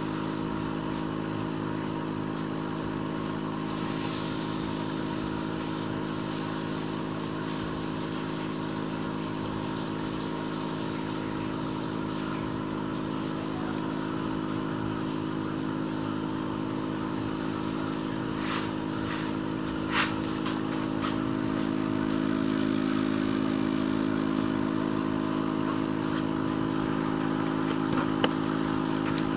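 Steady mechanical hum of an aquarium air pump feeding the bubbling air line, with a fast, faint high ticking that comes and goes and a few sharp clicks around twenty seconds in and near the end.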